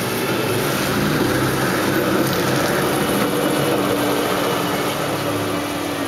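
Street traffic passing on a slushy city road: vehicle engines and tyre hiss, swelling a little in the middle before easing.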